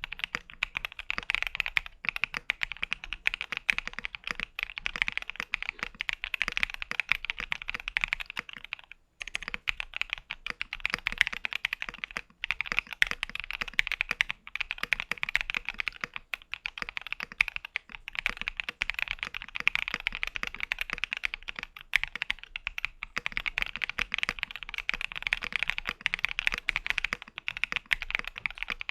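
Steady fast typing on an E7 mechanical keyboard, gasket mounted with an FR4 plate and fitted with frankenswitches: a dense run of keystrokes, broken by brief pauses about nine, twelve and twenty-two seconds in.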